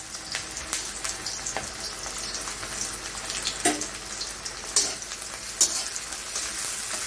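Sliced onions sizzling steadily in hot mustard oil in a metal wok. A few sharp scrapes and knocks of a steel spatula against the pan come in the second half as they are stirred.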